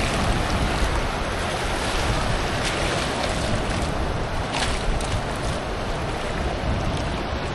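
Ocean surf washing and sloshing, with wind buffeting the microphone; a few short sharp sounds stand out about three and five seconds in.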